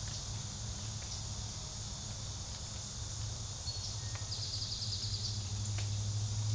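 Steady high-pitched insect chorus with a low rumble on the microphone. About four and a half seconds in comes a brief, rapid trill of about ten quick chirps.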